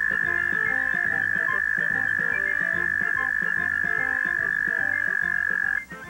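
An American toad's long, steady trill on one high note: a male's mating call, held for about six seconds before it stops abruptly near the end.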